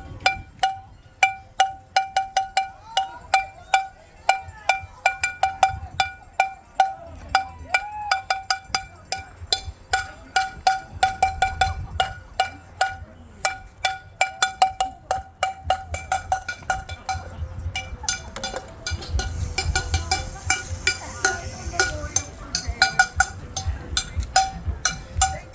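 Cowbell struck over and over with a spoon, a ringing metallic clank about two to three times a second in an uneven rhythm.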